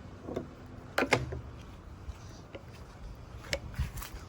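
A few separate knocks and clunks of plastic parts being handled and set in place, the loudest pair about a second in and smaller ones later.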